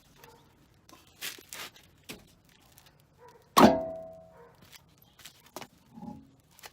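Metal clanks and knocks from tools and car parts being handled, a few scattered clicks, then one loud ringing clang about three and a half seconds in.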